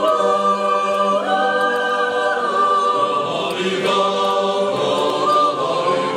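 Swiss yodel choir of men's and women's voices singing a cappella, holding long chords that change a few times.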